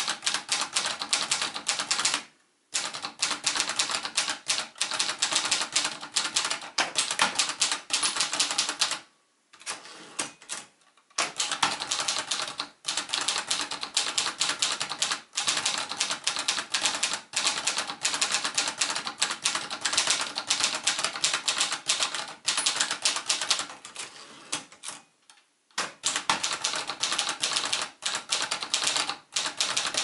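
1967 Consul 231.2 ultraportable manual typewriter being typed on at a steady pace: a fast run of key and typebar clacks that stops briefly three times.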